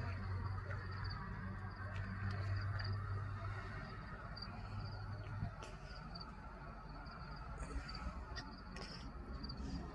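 Outdoor ambience: a short high chirp repeating about once a second, with a few faint clicks, over a low steady hum that stops about halfway through.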